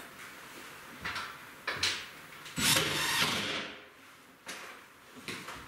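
Knocks and rubbing against a wooden wall cabinet as it is worked on from inside: a few short knocks, and about two and a half seconds in, one longer scrape lasting nearly a second.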